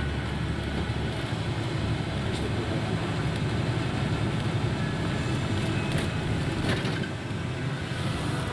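Steady rumble of engine and road noise heard from inside a moving vehicle, with a couple of faint clicks about six and seven seconds in.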